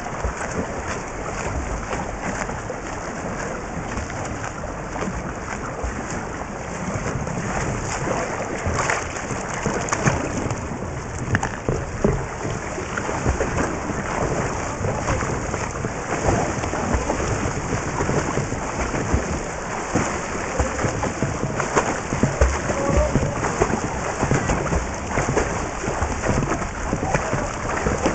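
Water churning and bubbling around a camera held underwater beside a freestyle swimmer: a steady, muffled water noise with crackling bubbles.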